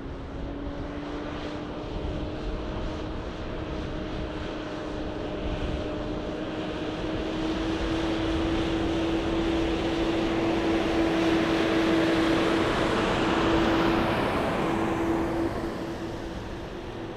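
Semi-trucks driving past close by: a steady diesel engine drone whose pitch slowly rises as they accelerate, over tyre and road noise. It builds to its loudest about twelve to fourteen seconds in, then falls away.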